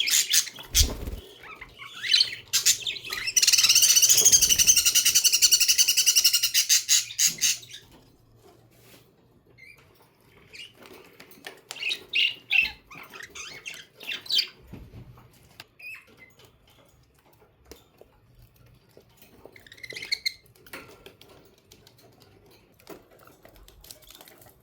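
Pet budgerigars chirping and warbling: a loud, continuous warble through the first several seconds, then scattered, quieter chirps and clicks.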